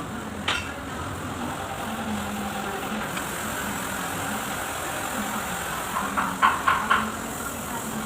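Kubota V1501 four-cylinder diesel engine running steadily, with one sharp metallic tap about half a second in and three quick clanks about six and a half seconds in.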